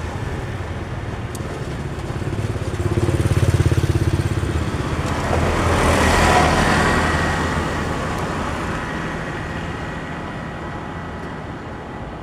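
A motor vehicle passing by on a road. An engine rumble builds over the first few seconds, then a swell of road noise peaks about six seconds in and slowly fades away.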